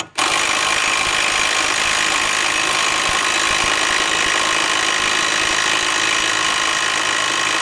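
Ryobi cordless impact wrench hammering steadily on a rusted mower spindle pulley nut, after a short blip at the start. It is driving a regular hand socket, not one made for impact use.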